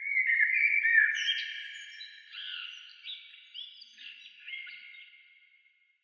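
A string of high, whistle-like tones, several overlapping and some held for over a second, each new note with an echoing tail. It starts abruptly and fades away over about five seconds.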